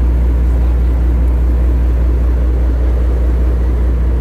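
Fishing boat's engine running steadily underway: a deep, constant drone with a rumbling noise over it.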